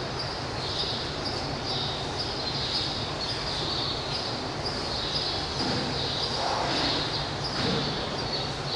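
Indoor elephant-house ambience: a steady low hum and hiss, with repeated short high-pitched chirps about twice a second.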